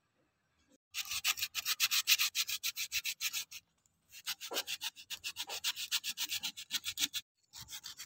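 Quick, even back-and-forth rubbing strokes on a carved wooden figure as it is smoothed by hand, about nine strokes a second. They start about a second in and break off briefly around four seconds in and again near the end.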